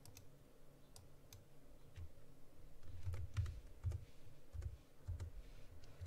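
Scattered clicks of a computer mouse and keyboard, with a few soft low thumps around the middle.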